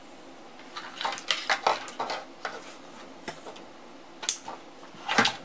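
Plastic plugs and wires being pulled apart and handled on a tabletop while an RC battery charger is disconnected: a quick run of small clicks and clatters about a second in, then a few single sharper clicks spread out toward the end.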